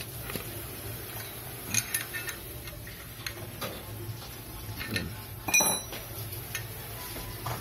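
Small metallic clicks and clinks of a wrench turning a fitting off a motorcycle rear shock held compressed in a homemade spring compressor, with one louder ringing metal clink about five and a half seconds in. A steady low hum runs underneath.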